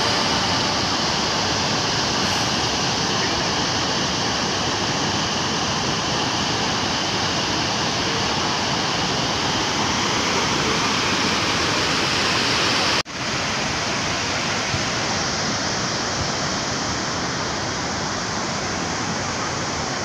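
Steady rush of river water pouring over a small weir and churning in white water below it. The sound cuts out for an instant about thirteen seconds in, then goes on a little duller.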